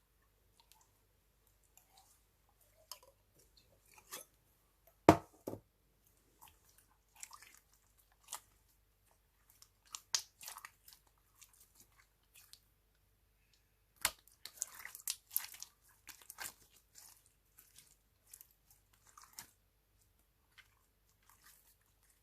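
Slime being mixed: scattered sticky clicks and crackles with short quiet gaps, a sharp thud about five seconds in, and a dense run of crackling a little past the middle.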